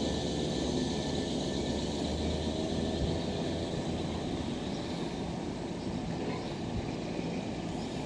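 Nankai electric commuter train running slowly into a station: a steady low rumble of wheels on rail and running gear with a faint hum, easing slightly as it slows.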